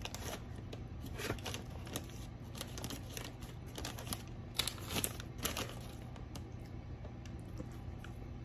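Paper burger wrapper rustling and crinkling as it is handled, in irregular bursts that are loudest around five seconds in and fade to light rustles after about six seconds.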